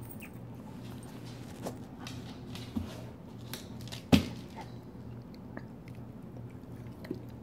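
Large mastiff-type dog panting close by, with wet mouth clicks and smacks, and one sharp knock about four seconds in.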